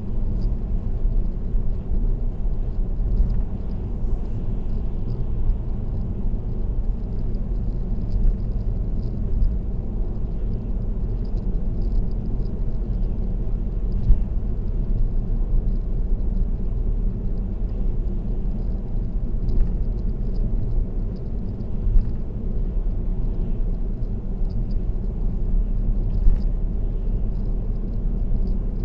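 Steady low road and tyre rumble of a car cruising on an expressway, heard through a dashcam inside the car. A few light thumps stand out, about halfway through and twice near the end.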